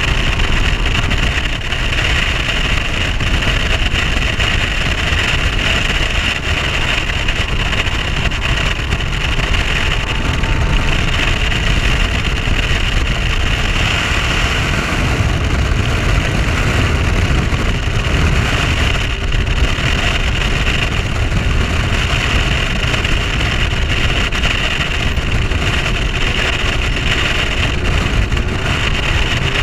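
A bass boat running at speed under its Mercury 150 OptiMax outboard: a steady, loud rush of wind and water with the engine's drone underneath.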